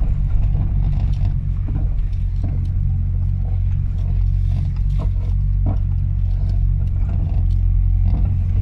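Car engine and road noise heard from inside the cabin while driving on a mountain road: a steady low drone.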